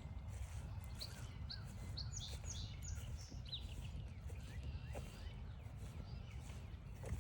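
A songbird gives a quick series of short, high, down-slurred chirps for a few seconds, starting about a second in, over a steady low rumble.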